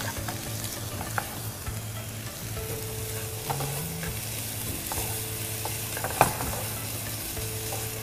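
Diced yellow capsicum and chicken sizzling in a non-stick frying pan, stirred with a wooden spatula. A few sharp taps of the spatula on the pan stand out, the loudest about six seconds in.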